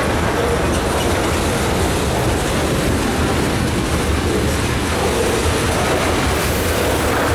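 Freight cars of a mixed freight train rolling past: a steady rumble of steel wheels on the rails.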